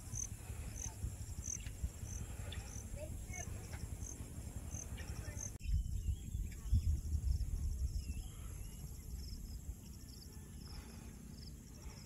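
Insects chirping in the grass, a high chirp repeating about twice a second, changing about halfway through to quicker pulsed trills. Underneath is a low rumble of wind on the microphone, loudest a little after the change.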